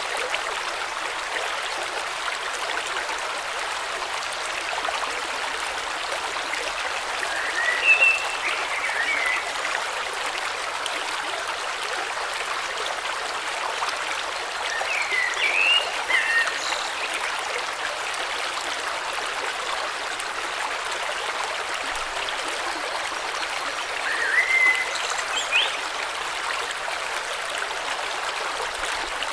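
A river flowing steadily, a continuous rush of water, with birds chirping in short clusters of calls about 8 seconds, 15 seconds and 25 seconds in.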